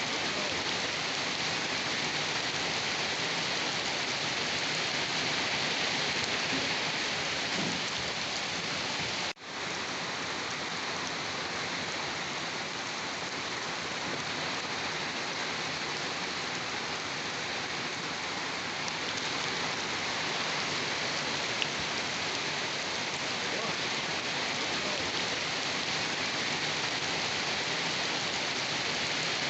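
Steady rain falling, an even continuous hiss, with the sound dropping out for an instant about nine seconds in.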